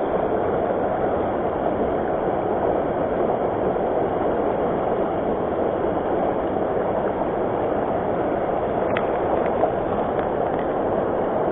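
Steady rushing of a fast-flowing river, with a faint click about nine seconds in.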